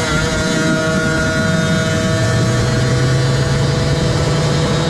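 Prostock 800 snowmobile's 800cc two-stroke engine running hard, heard from an onboard camera, holding a steady high pitch.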